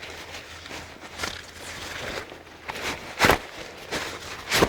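Rustling and handling noise from climbing gear, with a few sharp clacks and knocks, the loudest two near the end.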